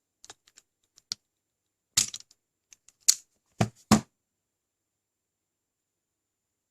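Automatic wire stripper handled and squeezed on a thicker flexible wire: a string of sharp clicks and snaps from the tool's jaws and handle, the loudest about three and four seconds in.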